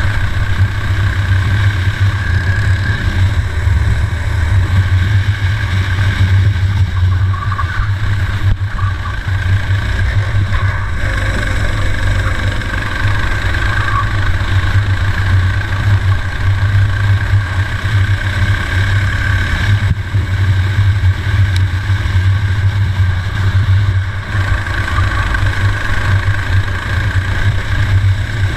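Four-stroke racing kart engine running hard under load on track, heard close up on the kart, easing off briefly a few times.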